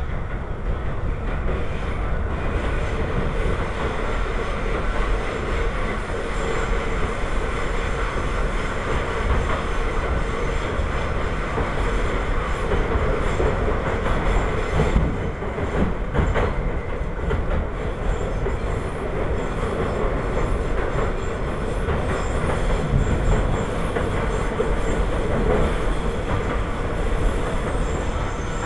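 New York City subway car running along the track, heard from inside the car: a steady rumble of wheels and running gear with a steady whine, and a few knocks of rail clatter about halfway through.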